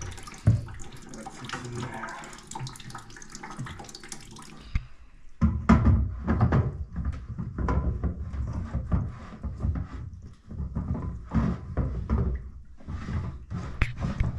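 Water trickling and splashing for the first five seconds, then stopping abruptly. After that comes irregular rubbing, creaking and knocking as the big plastic filter housing of a whole-house well-water filter is handled and screwed back onto its head.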